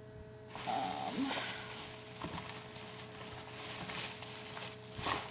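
Crinkling and rustling of plastic craft-supply packaging being handled, with small clicks and one louder knock just after five seconds in.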